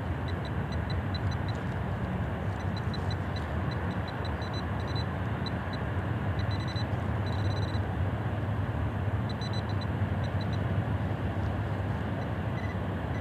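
A steady low rumble, with runs of short, high electronic beeps coming every second or two: a White's Bullseye TRX pinpointer sounding off as it is worked over a target in a freshly dug hole.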